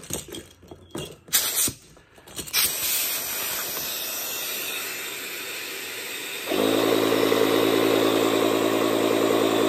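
Clicks and knocks of the pump's hose being fitted, then a steady hiss, and about six and a half seconds in a battery-powered electric paddle-board pump's motor starts and runs steadily, set to deflate and sucking the air out of the board.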